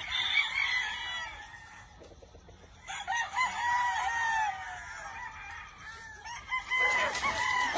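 Several gamecock roosters crowing in turns, with calls overlapping: one crow in the first second or so, another starting about three seconds in, and more near the end.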